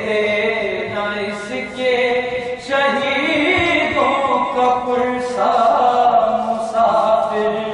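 A man chanting a Shia devotional lament (noha) in long held, melodic phrases as he reads from a book.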